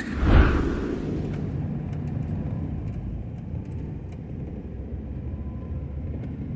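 Vehicle on the road: a steady low engine and road rumble with a low hum, swelling loudest about half a second in.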